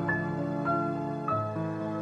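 Gentle new-age background music: a slow melody of single held notes, one about every half second, over sustained low notes.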